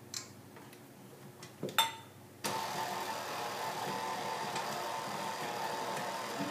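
Tilt-head electric stand mixer switched on about two and a half seconds in, its motor then running steadily with a constant whine as it mixes cookie dough. A sharp click comes just before it starts.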